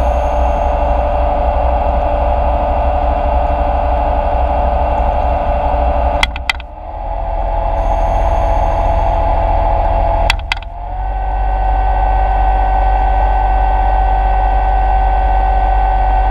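Underwater scooter (diver propulsion vehicle) motor running with a steady whine, heard underwater. It cuts out briefly with a click about six seconds in and again about ten seconds in. Each time it comes back slightly higher in pitch, as the speed is stepped up.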